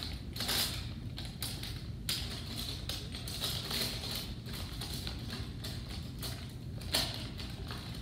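A zip-top plastic bag crinkling and paintbrushes clicking against each other as a hand rummages through them, in irregular rustles and light clicks.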